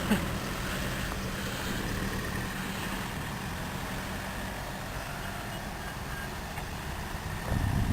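A 4x4 off-road vehicle's engine running steadily at low speed, with a short knock right at the start and a louder rumble near the end as it works harder.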